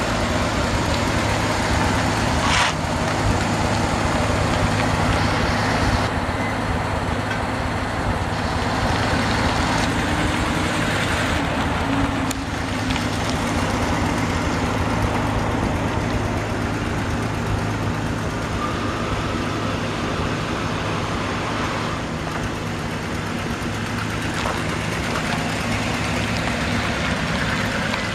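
1977 Dodge W250 pickup's 318 cubic-inch V8 gasoline engine running steadily as the truck drives around at low speed, with tyre and road noise.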